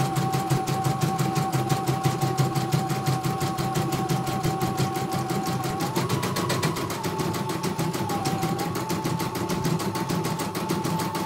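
CNY portable embroidery machine stitching: rapid, even needle strokes over a steady motor whine that steps up in pitch about six seconds in and shifts again a couple of seconds later.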